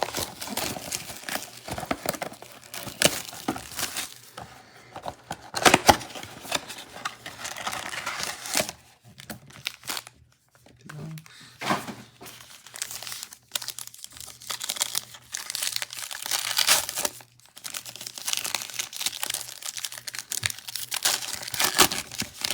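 Wrapper of a football trading-card pack being torn open and crinkled, with cards handled. The crinkling is irregular and dies away briefly about nine to eleven seconds in.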